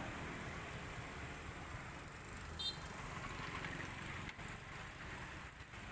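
Street traffic running steadily past, with a brief high beep about two and a half seconds in.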